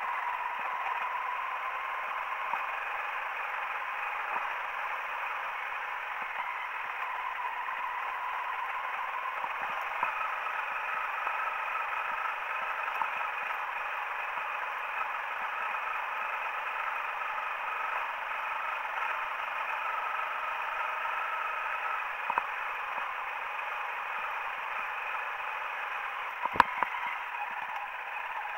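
Honda CRF 250L's single-cylinder four-stroke engine running at a steady pace on a dirt track, heard thin and muffled with no low end. One sharp knock near the end.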